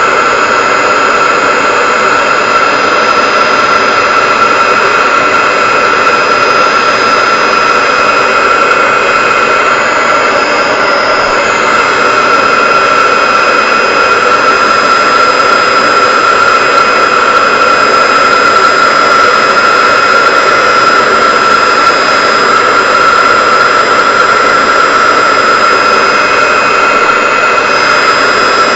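Old handheld hair dryer running steadily while drying hair: a loud, even rush of air with a steady high whine over it.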